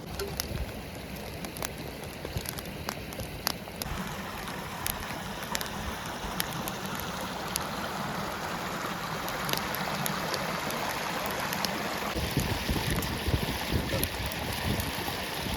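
Forest stream running with a steady rush, with scattered sharp clicks and crackles over it. About twelve seconds in, a low rumble of wind on the microphone joins.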